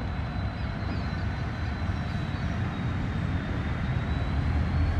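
An Indian Railways train passing, a steady low rumble.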